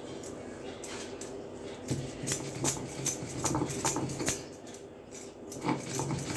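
Dried ginger being ground on a stone grinding slab with a stone roller: stone rubbing on stone in repeated scraping strokes, a couple a second, starting about two seconds in.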